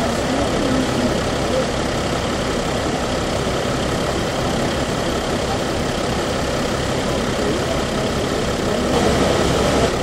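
A fire engine's diesel engine idling steadily.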